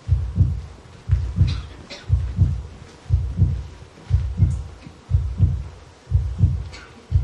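Heartbeat sound effect: a steady low double thump, lub-dub, about once a second, standing for the anxiety of a character on stage.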